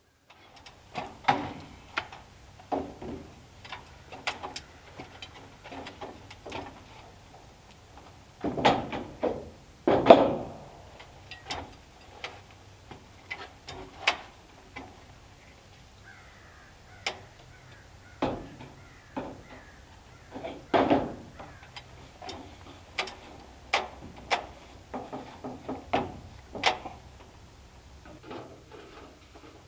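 Irregular knocks, clanks and scrapes of stainless steel chimney pipe being handled on a ladder and against a corrugated metal roof. The loudest bangs come about nine to ten seconds in and again around twenty-one seconds.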